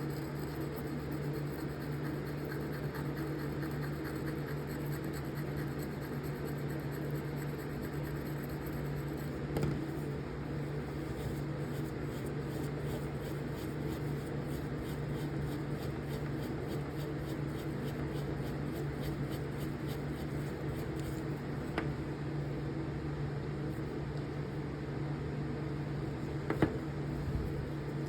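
Steady low machine hum of room ventilation, with faint scratching and a few small ticks as a copper bore brush is worked over a rusty knife blade by hand.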